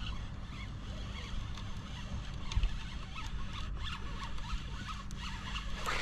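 A fishing reel being wound in with a fish hooked, a quick scratchy clicking, over a steady low hum.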